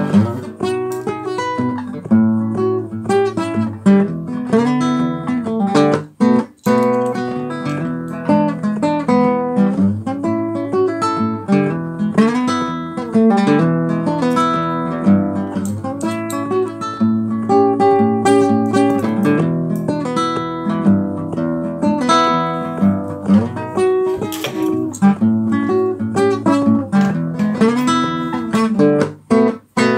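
Acoustic guitar music, plucked and strummed, playing as background music, with two brief breaks in the playing, about six seconds in and just before the end.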